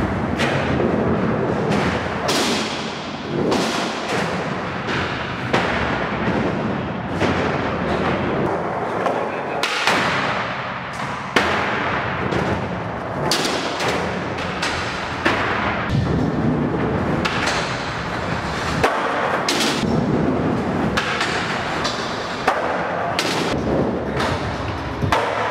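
Skateboard wheels rolling loudly over the ramps and floor, broken every second or two by sharp cracks and thuds as the board pops, lands and slaps down during tricks.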